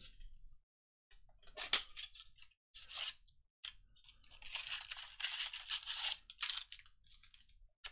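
A cardboard Mosaic football blaster box being torn open: a few short, sharp rips of card, then about two and a half seconds of tearing and scraping as the foil packs are pulled out of the box.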